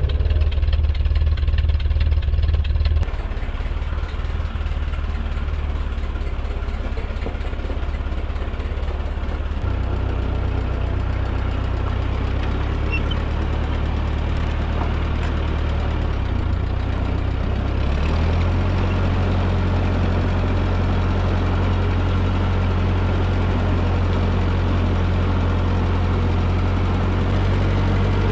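1944 Ford 2N tractor's four-cylinder flathead engine running on its freshly rebuilt carburetor, its note stepping to a new pitch a few times, about 3, 10 and 18 seconds in, as the tractor is driven.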